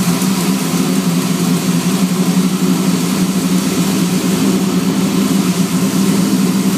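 A 385-cubic-inch fuel-injected small-block Chevy V8 idling steadily.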